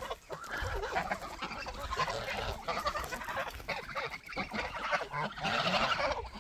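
Flock of domestic geese calling, many short calls overlapping, growing loudest near the end.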